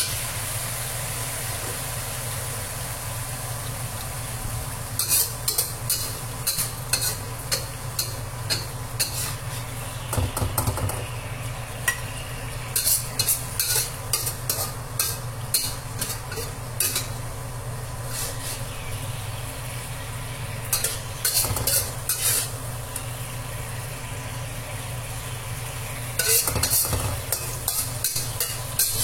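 Food sizzling steadily in a pan, with repeated bursts of rapid clicking and scraping strokes of a utensil against the pan.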